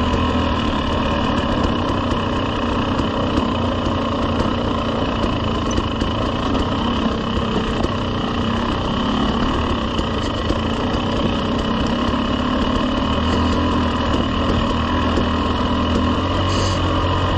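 KTM 300 two-stroke dirt bike engine running steadily at low trail speed, heard close up from the bike.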